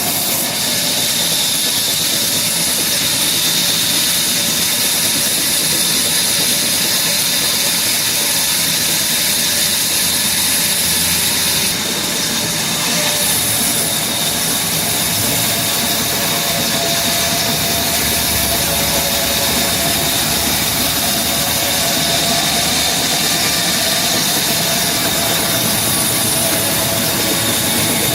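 Wood-cutting saw machinery running steadily, with a loud, even hiss and no break.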